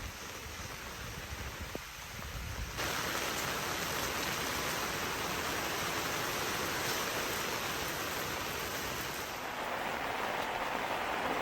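Steady rain falling, an even hiss that grows abruptly louder about three seconds in.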